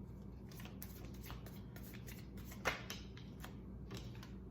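Tarot cards being shuffled by hand: a run of soft papery flicks and clicks, with one sharper snap a little past the middle.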